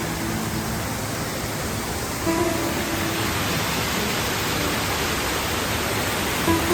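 Waterfall rushing in a steady, even roar, with a few soft acoustic guitar notes from background music over it.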